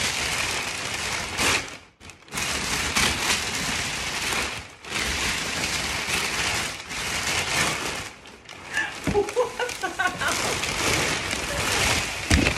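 Large sheets of white packing paper rustling and crinkling as they are pulled out of a box and tossed aside, in stretches broken by short pauses. A brief vocal sound is heard about nine seconds in.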